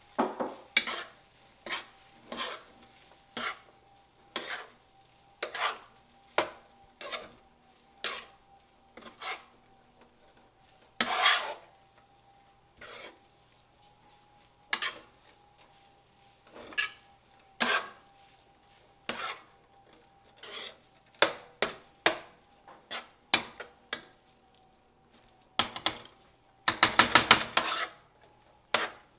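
Metal spoon stirring chicken and mixed vegetables through a sauce in a nonstick frying pan, scraping and clinking against the pan about once a second. There is a longer scrape about a third of the way through and a quick run of rapid strokes near the end.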